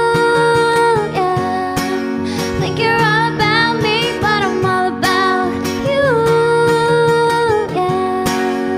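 Pop song playing: a singer holding long notes, with a short run of wavering notes in the middle, over strummed acoustic guitar and a steady beat.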